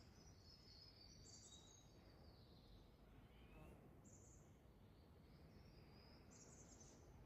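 Faint birdsong over quiet outdoor background: one bird repeats a short high phrase about every two to three seconds, three times, with softer calls lower down.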